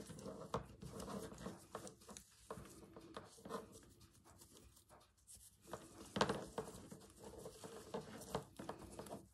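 Close handling of fabric bunting, ribbon and rickrack while tying a knot: soft rustling with scattered light clicks and taps from beads and wooden cotton reels, one sharper click about six seconds in.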